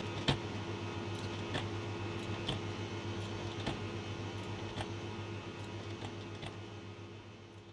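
Irregular clicks of a computer mouse and keyboard, about one or two a second, over a steady low hum from the computer; the sound fades out near the end.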